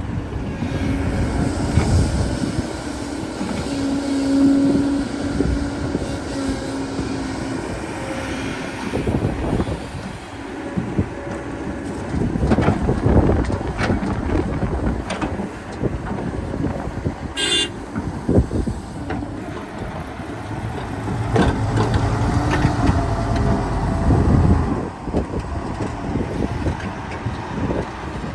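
Excavator working: the diesel engine runs under load with a steady whine, and there are repeated knocks and clanks of the bucket and material. A single sharp metallic clang comes about 17 seconds in.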